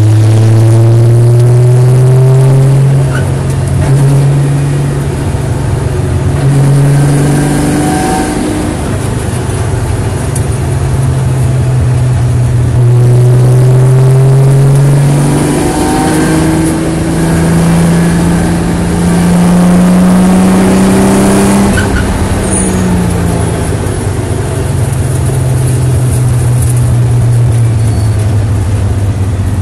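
Nissan 300ZX's 3.0 V6 engine heard loud from inside the stripped cabin under hard acceleration on track, its pitch climbing and then dropping back several times.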